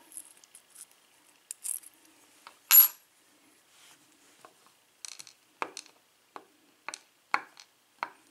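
Small lock pins clicking as they drop out of a Russwin lock cylinder plug into a plastic pinning tray. There is one sharp click about three seconds in, then a string of lighter clicks about every half second over the last few seconds.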